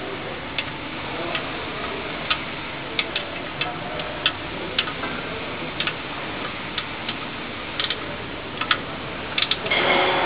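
Irregular light metallic clicks and taps as thin metal tools knock against a car's spring-bolted exhaust flange joint. There are roughly one to three clicks a second over a steady background hiss, and a louder, fuller noise rises just before the end.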